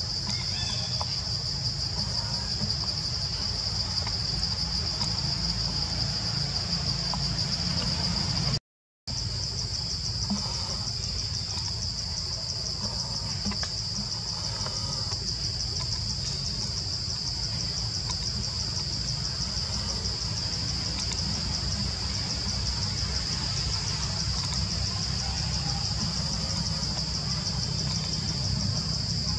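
Steady, high-pitched chorus of forest insects with a fast shimmering pulse, over a low rumble. Everything cuts out for a split second about nine seconds in.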